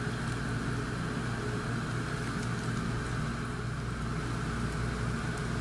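Semolina mushabak dough frying in a pan of hot oil, a steady sizzle as fresh dough is piped in, over a steady low mechanical hum.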